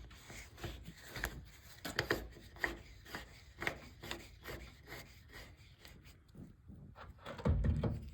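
A garden hose's coupling being screwed by hand onto a water heater's drain valve: a run of short, irregular scraping and rubbing strokes, with a louder low bump near the end.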